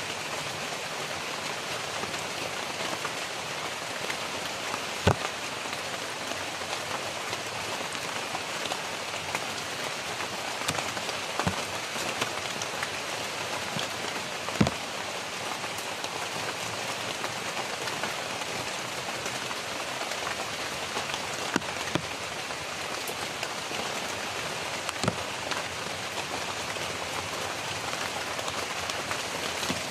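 Steady rain falling on dense tropical foliage, an even hiss of drops on leaves. About five sharp taps stand out, the loudest about halfway through.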